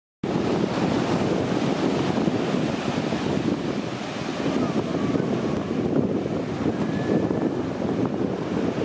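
Sea surf washing and wind buffeting the microphone: a steady, rushing noise that swells and eases slightly.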